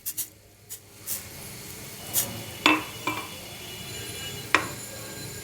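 Metal pot and utensils clinking several times, the two loudest knocks near the middle and near the end, over a faint steady hiss.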